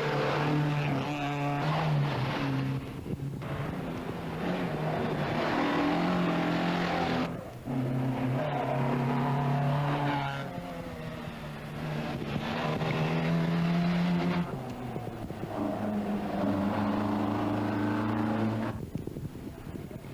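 Rally car engine revving hard under load, its pitch climbing and then dropping several times as it changes gear.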